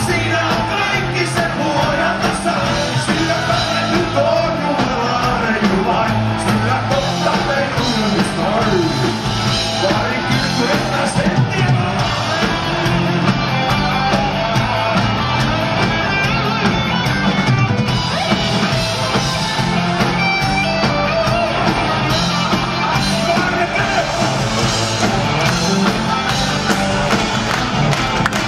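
Rock band playing live, loud and without a break: electric guitars, drums and keyboards in an instrumental stretch between sung lines.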